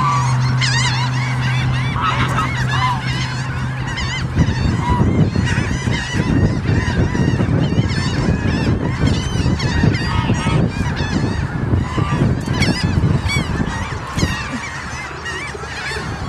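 A flock of water birds (gulls and ducks) calling loudly over one another, many short overlapping calls. A steady low hum runs underneath for the first four seconds, then a low rumbling noise through most of the rest.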